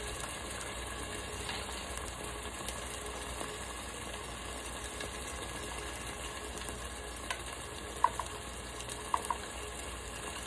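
Tomato, onion and pepper base sizzling steadily in an Instant Pot's inner pot on sauté, with a few light clicks of a plastic measuring spoon and bottle.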